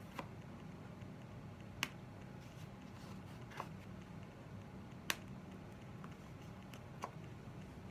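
Fingers pressing small balls of mounting putty onto cardboard, heard as five light, sharp clicks of fingertips and nails on the card, about one to two seconds apart. A faint steady low hum sits underneath.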